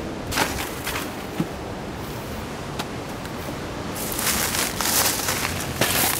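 Wind buffeting the microphone with a steady low rumble and a few light clicks. From about four seconds in, a louder crackling rustle of leaves and twigs takes over as the low shrubs are pushed through.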